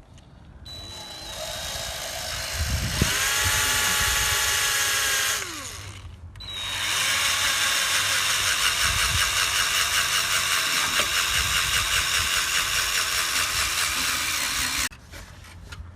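Electric drill spinning an 800-grit sanding pad against a plastic headlight lens, wet sanding. It runs twice: the first run speeds up and then winds down after about five seconds, and the second runs steadily for about eight seconds and cuts off suddenly.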